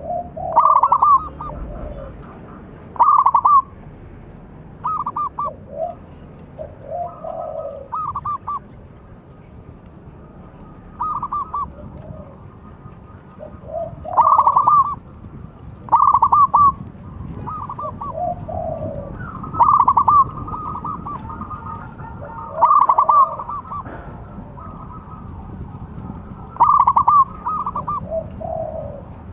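Zebra dove (perkutut) cooing its song: short phrases of quick, clipped coos, some higher and some lower, repeated every second or two over a faint low background rumble.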